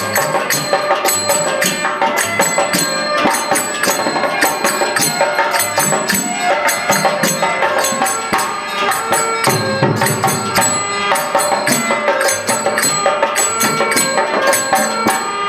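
Instrumental interlude of a bhajan: a dholak drum played by hand in a quick, steady rhythm, with small brass hand cymbals (talam) clashing on the beats.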